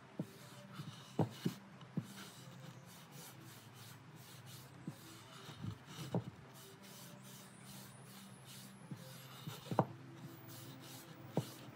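Hands rubbing and wiping finish over bocote wood panels, with a handful of short wooden knocks as the pieces are picked up, turned and set back down on the cloth-covered bench.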